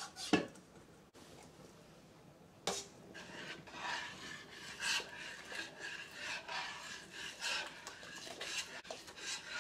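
Metal spoon against metal: two clinks in the first three seconds, then from about three seconds in a spoon repeatedly scrapes and stirs inside a stainless steel pot as cornstarch slurry is stirred into the simmering chow mein to thicken it.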